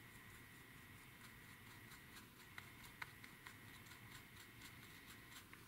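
Near silence: faint, irregular ticks of a small, water-dampened paintbrush scrubbing and picking at the paint on a plastic model cockpit floor to chip it. A faint steady high whine runs underneath.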